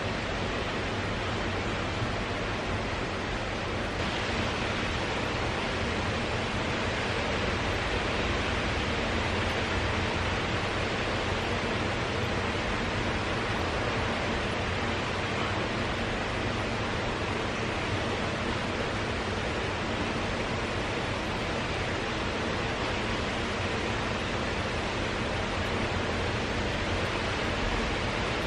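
A fan running with a steady, even rushing noise, a little brighter about four seconds in.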